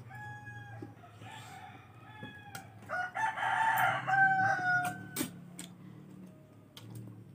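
A rooster crowing in the background, its loudest, longest crow held about three seconds in and dropping at the end, with a few sharp clicks around the middle.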